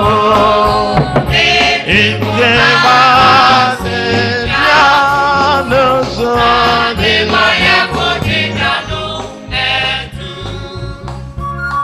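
Gospel music with a choir singing over a steady bass beat, fading down near the end.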